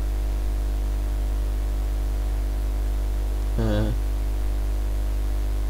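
Steady electrical mains hum on the recording line. About three and a half seconds in, a man's voice makes one short sound.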